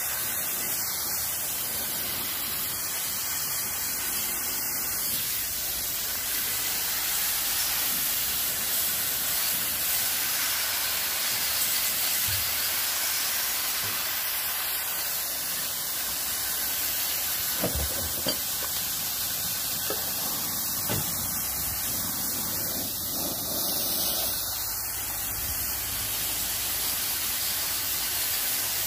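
Steady hiss of a water jet from a hose nozzle spraying through the aluminium fins of a window-type air conditioner's coil, with water splashing off it. A few faint knocks come past the middle.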